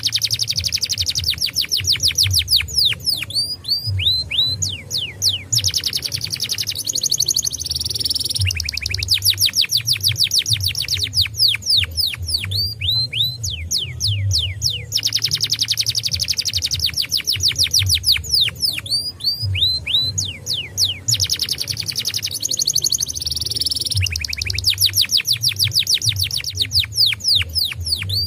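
Domestic canary singing long rapid trills: rolls of fast, falling high notes, phrase after phrase with short breaks. This is a canary lure song meant to prompt other canaries to sing. A low rhythmic throb of background music runs underneath.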